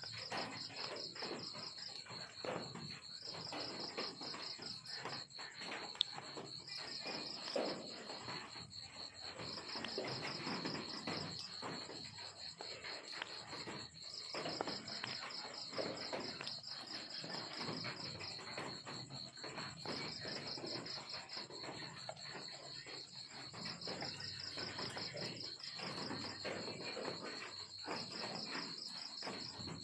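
Crickets chirping: a steady high trill with bouts of rapid pulsed chirps every few seconds, over an irregular rustling.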